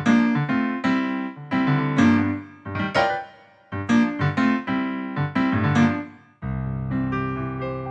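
Casio CT-X700 keyboard playing a piano-type tone: chords struck roughly every half second, each dying away. About six and a half seconds in, it switches abruptly to a different, sustained voice over a steady held bass.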